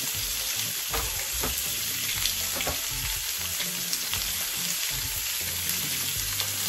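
Chicken breast fillets sizzling steadily in a hot ridged grill pan, with a few faint pops.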